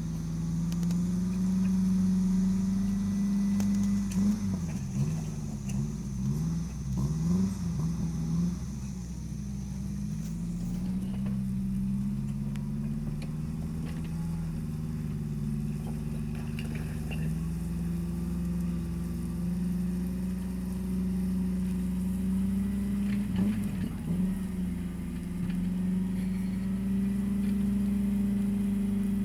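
A motor vehicle engine running steadily, its pitch wavering up and down for a few seconds between about 4 and 9 seconds in, and briefly again a little past 20 seconds.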